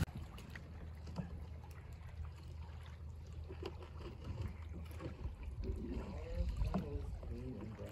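Canoe being paddled on calm water: faint water lapping and small paddle splashes over a low steady rumble, with faint voices talking in the last two seconds or so.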